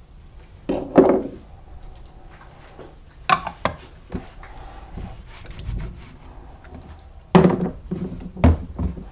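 Knocks and scrapes of a paint can and a foam brush being handled and moved on a cardboard-covered workbench. A few separate clusters, the loudest about a second in and near the end.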